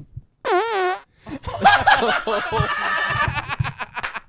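Several men laughing hard together. A short, high, wavering cry about half a second in is followed by a long burst of overlapping laughter.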